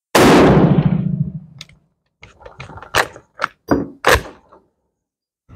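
A single shot from a Steyr M95 long rifle in 8x50R Mannlicher, ringing off the concrete wall and dying away over about a second and a half. Then the straight-pull bolt is racked back and forward in a run of sharp metallic clacks, ejecting the spent case and chambering the next round.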